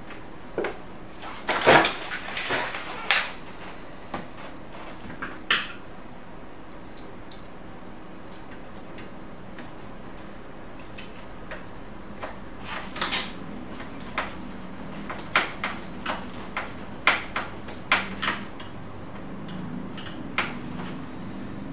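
Scattered clicks, knocks and light clatter of plastic and metal parts being handled inside an opened HP LaserJet P3005 laser printer during reassembly. The loudest knocks come in a cluster about two seconds in, with another run of clicks from about twelve to eighteen seconds.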